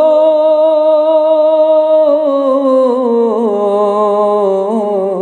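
Unaccompanied male voice holding one long sung note at the end of a line of a Bangla Islamic song (gojol), wavering slightly and sinking in pitch near the end before it stops.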